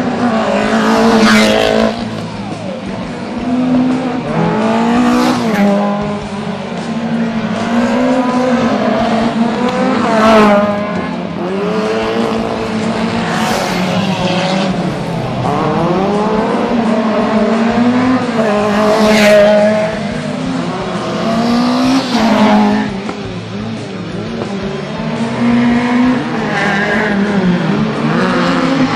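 Racing cars' engines revving hard and dropping back again and again as they accelerate and brake through tight turns, with tyres squealing several times.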